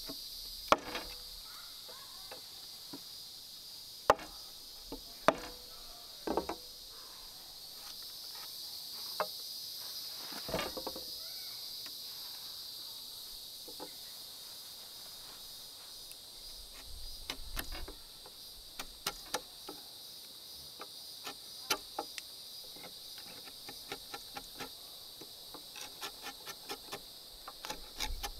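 Steady high-pitched chirring of insects, with scattered sharp knocks and taps from wood being worked. A few louder single knocks come in the first half, and a run of quicker small taps comes near the end.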